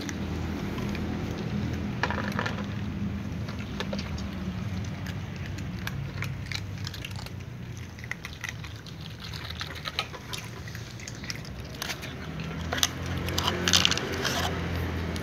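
Cats crunching dry kibble out of plastic cups: an irregular run of small crisp clicks, with a louder clatter of plastic near the end. A steady low hum runs underneath.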